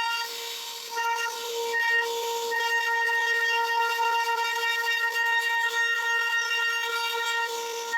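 CNC router spindle cutting wood, giving a steady high whine at a single unchanging pitch, with a brief dip in level about half a second in.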